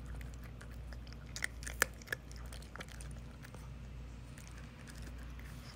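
A cat crunching dry kibble: irregular sharp crunches, the loudest bunched about a second and a half in, thinning out later.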